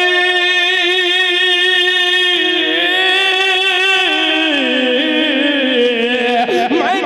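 A man singing a naat solo, drawing one word out into a long ornamented note with vibrato; the pitch holds steady for about two and a half seconds, then steps down through a run of turns and climbs again near the end.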